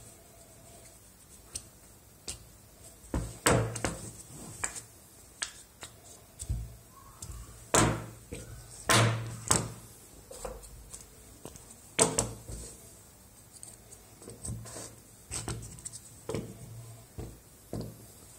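Plaster dental casts and putty being handled on a hard bench: irregular knocks, taps and scrapes, several sharper knocks standing out among softer handling sounds.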